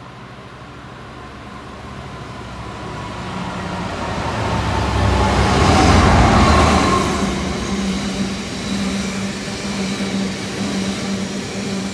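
Freight train passing at speed: a diesel locomotive's engine and wheels grow steadily louder to a peak as it goes by about six seconds in, then the open box wagons rumble past at a slightly lower, uneven level.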